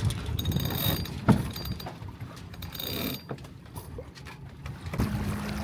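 Clicks, knocks and brief high squeaks of sailboat hardware, with one sharp knock about a second in.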